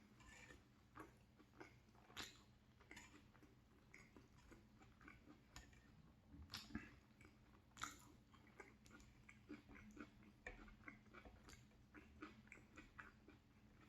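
A person chewing macaroni and cheese close to the microphone: faint, irregular mouth clicks and smacks.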